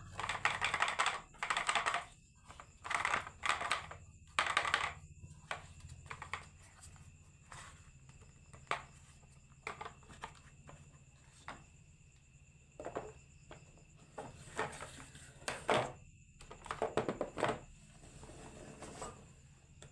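Marbles rolling and clattering down a wooden marble run, in short bursts of rapid clicks with single clacks in between; the busiest stretches are in the first five seconds and again near the end.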